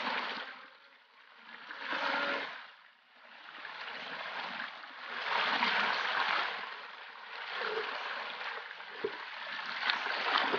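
Water poured from a bucket splashing onto a wet carpet mat and a hand scrubbing the carpet, washing gold-bearing sediment through it. It comes in surges, a short one about two seconds in and a longer one from about five seconds, with a couple of light knocks near the end.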